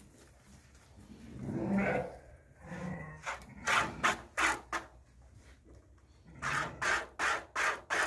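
A ewe being hand-milked into a plastic bucket: short squirts of milk hiss into the bucket in a quick rhythm, about two to three a second. A sheep bleats about a second and a half in.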